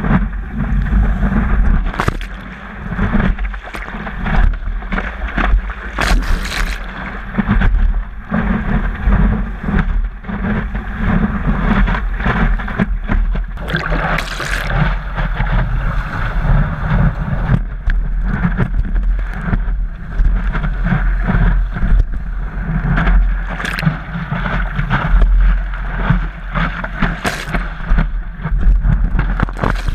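Water rushing and splashing against the nose of a stand-up paddleboard riding wind-blown swell, with wind rumbling on the microphone. Every few seconds a louder splash stands out.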